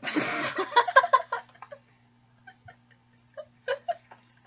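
Two young women giggling and laughing, loudest in the first second and a half, then trailing off into quieter bursts of breathy laughter, over a faint steady low hum.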